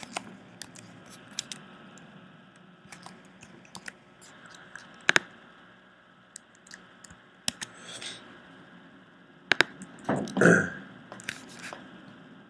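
Computer mouse clicks and key presses: single clicks at irregular intervals, some in quick pairs. About ten seconds in comes a louder, rougher noise lasting about half a second.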